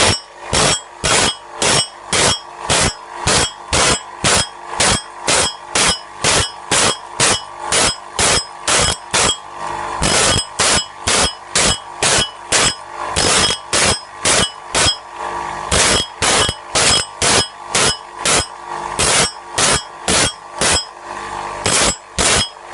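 Bandsaw blade sharpening machine grinding the teeth one after another: a short grinding stroke about twice a second, very regular, over a steady motor hum.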